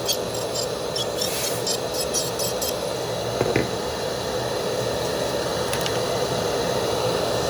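Dental lab handpiece running steadily, its bur grinding the underside of a 3D-printed temporary bridge to take it down so that it fits.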